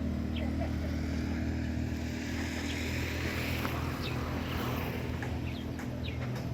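An engine running steadily at an even speed, a constant low hum, with faint short high chirps over it.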